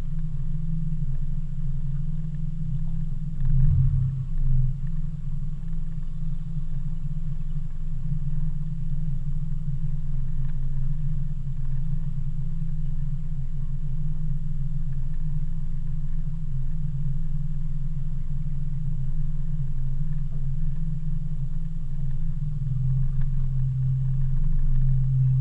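Outboard motor running steadily at trolling speed, heard as a low, even rumble through the boat, with a couple of thumps about four seconds in and again near the end.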